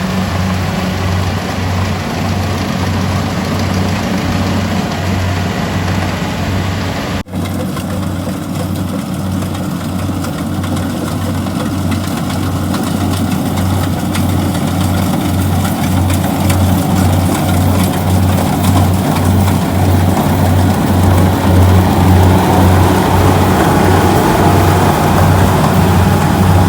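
Kubota DC-70G rice combine harvester running, its engine a steady low drone with a regular throb. It breaks off for a moment about seven seconds in, then grows louder and brighter toward the end.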